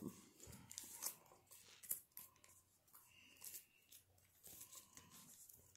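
Faint, intermittent rustling and light crackling as trading cards and their packaging are handled.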